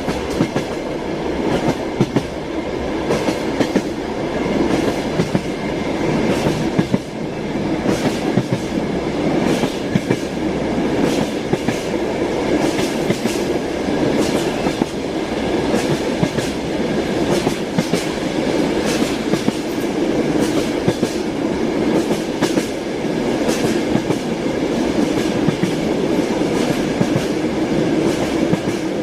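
Train wheels clattering over rail joints: a steady rolling rumble with repeated sharp clacks.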